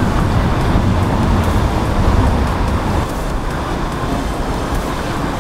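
Motor yacht under way at speed: deep, steady engine noise mixed with water rushing and splashing along the hull, easing slightly about three seconds in.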